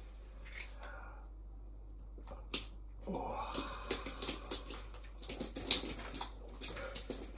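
Baked beans poured over a man's head, landing in a wet, sloppy mass from about three seconds in, then a run of small splats and drips. He gasps under it, and there is one sharp click just before the pour.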